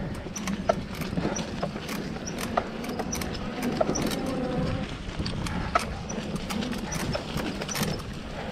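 Samebike LO26 electric folding bike clattering and rattling over a rooty dirt trail: irregular sharp knocks and clicks over a steady rumble of tyres on the dirt.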